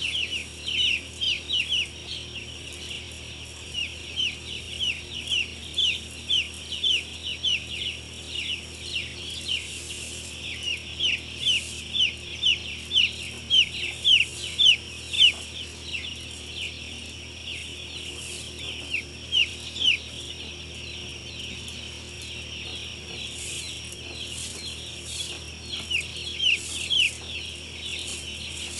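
A large flock of young broiler chicks peeping, their short falling peeps overlapping without pause, over a faint steady low hum.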